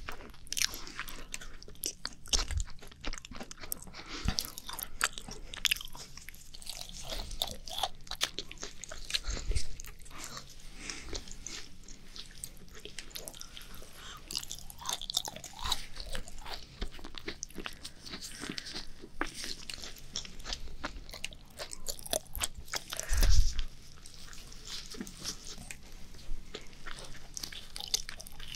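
Macarons being bitten and chewed close to the microphone: crisp shell crunches and soft, moist chewing, irregular and continuous. One louder low thump comes late on.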